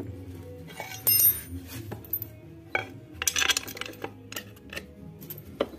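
Metal hand tools clinking and tapping: steel sockets and a wrench being handled against metal parts and the concrete floor while refitting a scooter's rear wheel. The brightest clinks come about a second in and again around three and a half seconds in.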